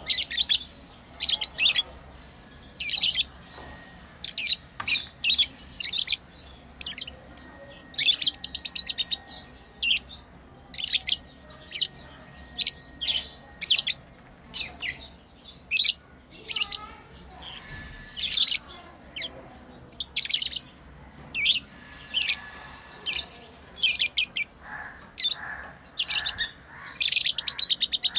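Pet lovebirds chirping: a long run of short, high-pitched chirps coming every second or so, with rapid strings of calls about eight seconds in and again near the end.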